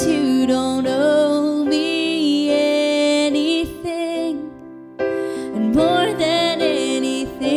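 Slow, gentle worship song: a woman singing with digital piano accompaniment, her phrases broken by a short pause about four and a half seconds in.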